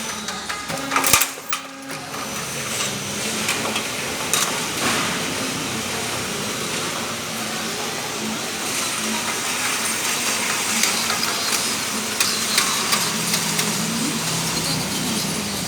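Machinery running with a steady whirring hiss, with a brief burst of sharp clattering about a second in.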